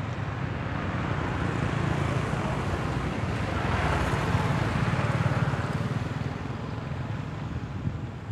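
Road traffic: a steady low engine rumble, with a passing vehicle swelling to its loudest about four to five seconds in and then fading.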